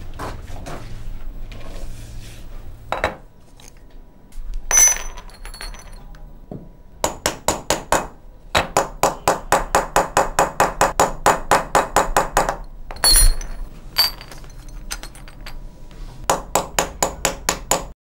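Fast runs of small, bright metallic or glassy clinks, about five a second, each ringing briefly at the same pitch. Two louder clinks stand out, about five seconds in and about thirteen seconds in.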